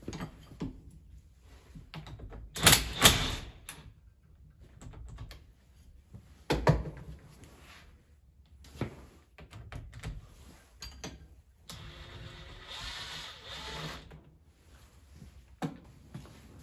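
Metal hand tools clinking and knocking against a hydraulic cylinder clamped in a bench vise and against the wooden workbench: a few sharp clanks, the loudest around three seconds and again near seven seconds in, then softer ticks and a couple of seconds of rustling noise.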